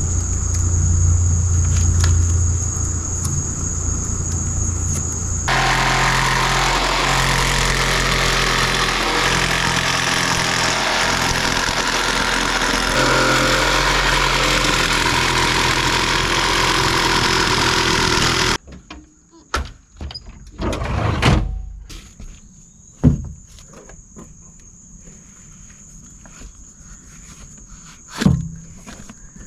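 Power saw cutting a sheet of plexiglass: a steady mechanical hum for the first few seconds, then a loud even rasp of the cut that stops abruptly about two-thirds of the way in. After that come scattered knocks and clatters as the sheet is handled.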